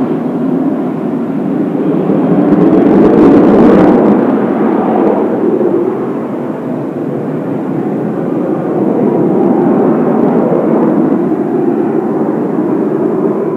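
Kawasaki T-4 jet trainers in a four-ship formation flying over: a loud, steady rush of turbofan jet noise that swells to its loudest about three to four seconds in, eases a little, then builds again.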